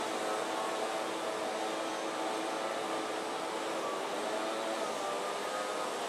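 Steady mechanical drone over a haze of distant city noise, made up of several held tones that drift slightly in pitch, typical of distant traffic and machinery.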